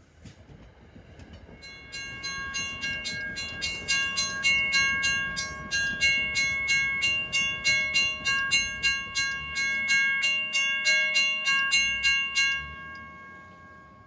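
Railroad crossing bell ringing fast and evenly, about three strikes a second, starting about two seconds in and stopping shortly before the end, over a low rumble.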